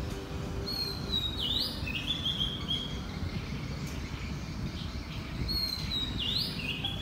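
A songbird singing two similar phrases about five seconds apart, each a high held whistle, a quick upward sweep, then a few lower stepped notes. Underneath is a steady low outdoor background noise.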